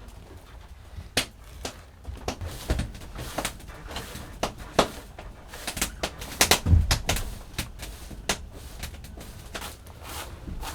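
Irregular knocks and clicks of objects being handled, busiest about six to seven seconds in.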